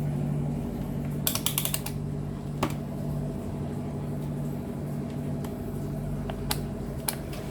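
Small clicks of test probes and tools being handled while a TV power-supply board is checked: a quick run of clicks about a second in, then single clicks, over a steady low hum.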